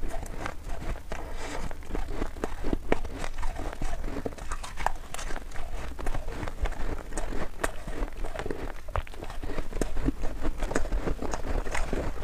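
Close-up crunching of powdery white frost ice being chewed, a dense run of small crisp crunches, with a metal spoon scraping and scooping through the ice in a plastic tub.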